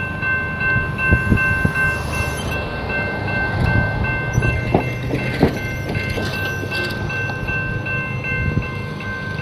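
Railroad crossing warning bell ringing with quick, regular strikes while the crossing gates rise, over a low rumble. A few sharp knocks come about five seconds in.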